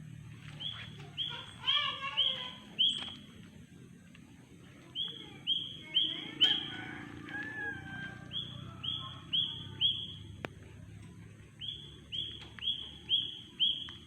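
Birds calling: one bird repeats a short, slightly falling call in runs of four or five, about two calls a second, four runs in all, with softer chirps from other birds in between.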